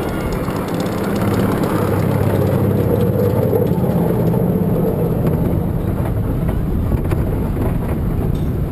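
Bobsled roller coaster car running along its steel trough track: a loud, steady rumble of the wheels that grows louder about a second in.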